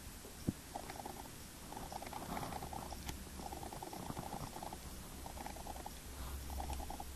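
Grey squirrel gnawing seeds close by: several short bursts of rapid, fine clicking, with one sharper click about half a second in.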